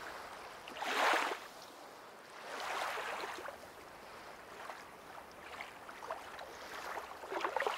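Ocean surf washing on a beach: a short swell about a second in, a longer wave around three seconds in, then a softer, uneven wash.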